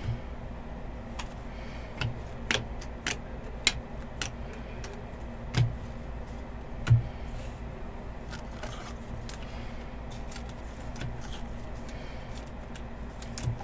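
Trading cards being handled and sorted: scattered light clicks and taps, with a sharper knock about seven seconds in, over a steady low hum.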